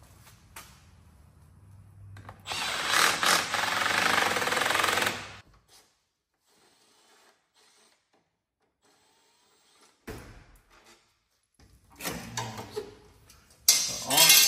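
A cordless driver running in one burst of about three seconds, unscrewing the bolts that hold the lower front trim piece. Near the end come knocks and a loud clatter as the piece is pulled off.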